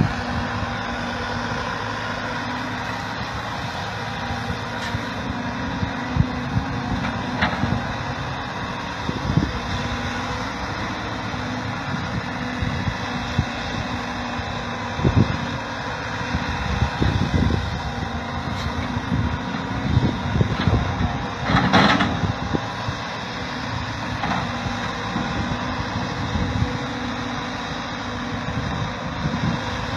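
Heavy diesel machinery running steadily, with scattered knocks and clanks; the loudest cluster of knocks comes about three-quarters of the way through.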